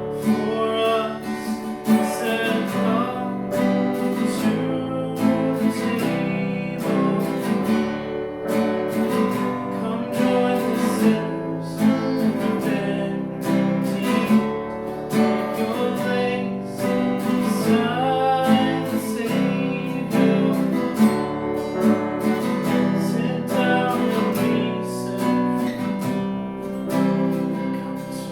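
Acoustic guitar strummed steadily, accompanying a worship song.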